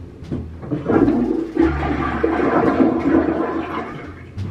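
Toilet flushing: a rush of water starts about a second in and dies away near the end.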